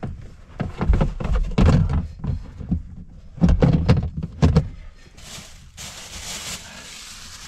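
Gear being shifted around on a truck bed: a run of irregular knocks and thumps, then a few seconds of rustling near the end.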